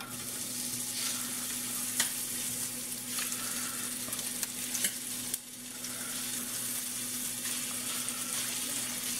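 Cornstarch-coated chicken pieces sizzling in hot oil in a stainless steel skillet as they are laid in with metal tongs, with a few sharp clicks of the tongs against the pan. The sizzle is gentle because the pan is not quite hot enough, which the cook admits it could have been a little hotter.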